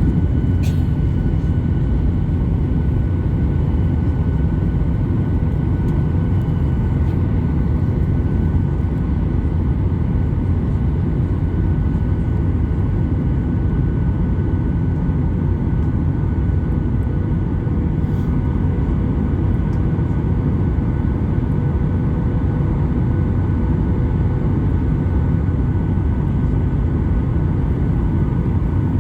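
Boeing 737-800 in flight, heard from inside the cabin: a steady, loud low roar of engine and airflow noise with a faint constant whine, unchanging throughout.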